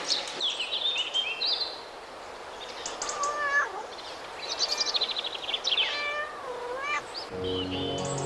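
A cat meowing several times, short high calls and longer meows that fall in pitch. Music comes in near the end.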